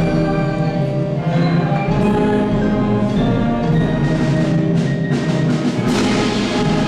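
Orchestral music with sustained chords, and a run of percussion strikes about two thirds of the way through.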